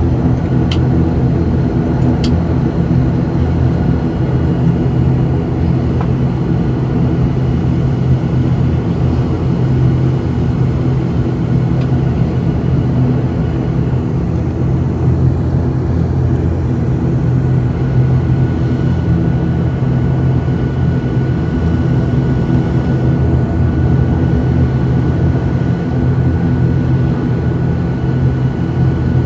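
ATR 72-600's Pratt & Whitney PW127M turboprops and propellers droning loudly and steadily, heard inside the cabin, with a couple of faint clicks about one and two seconds in.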